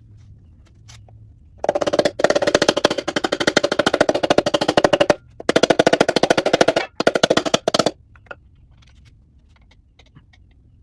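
Impact wrench hammering in four bursts of rapid, even rattling, on fasteners during teardown of a 327 small-block V8.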